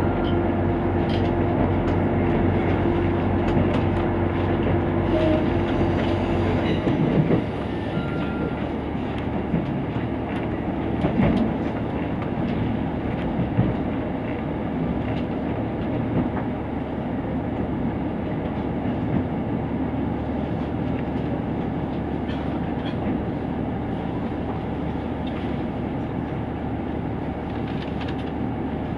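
Inside a KiHa 75 diesel railcar: the diesel engine drones steadily under power, then its note cuts out abruptly about seven seconds in as power is shut off. This leaves the rumble and clatter of wheels on rail as the train coasts and slows for a station stop.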